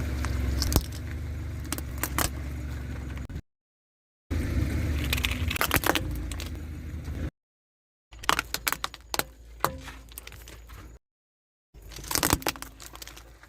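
Cars being crushed by a machine: a steady low running hum with crunching metal and sharp cracks and snaps. The sound comes in four short clips, each cut off by a brief dead silence.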